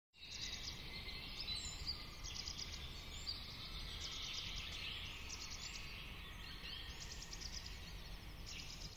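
Forest ambience: birds chirping and trilling again and again over a steady hiss, with a low rumble underneath. It starts and cuts off abruptly.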